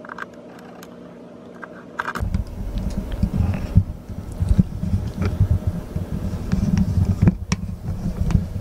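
Handling noise: a few faint clicks, then from about two seconds in a loud, irregular low rumble with knocks as a Boya BY-MM1 mini shotgun microphone in its furry windscreen is plugged into the camera and jostled, shaken and rattled on the mount.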